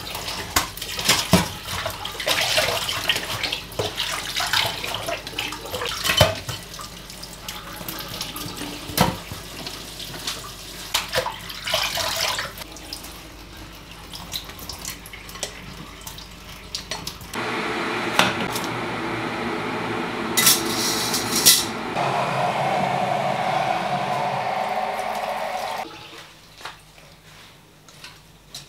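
Kitchen faucet running over leafy greens in a plastic colander in a steel sink, with splashing and repeated clatter of the colander and dishes. Later comes a steady stretch of running water lasting about eight seconds, broken by a couple of sharp clatters, which stops shortly before the end.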